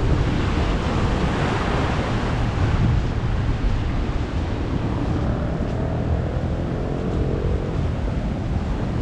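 Sea surf washing onto the shore, with wind rumbling on the microphone.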